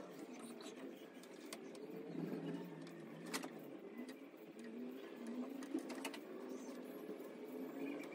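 A few faint clicks and taps of hands working on the speaker wiring inside a wooden loudspeaker cabinet, over faint distant voices.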